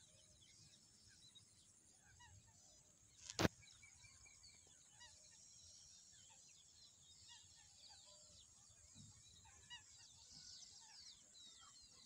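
Faint chorus of many short bird chirps and calls scattered throughout, with one sharp click or knock about three and a half seconds in.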